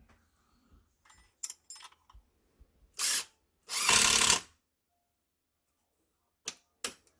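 Small power tool run in two short bursts, a brief one about three seconds in and a longer one near four seconds, with a few light clicks and knocks before and after.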